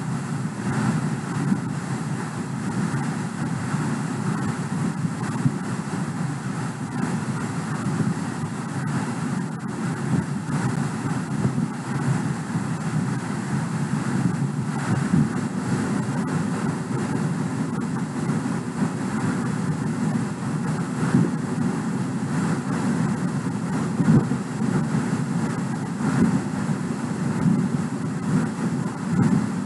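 Steady background rumble and hiss with no speech and no distinct events.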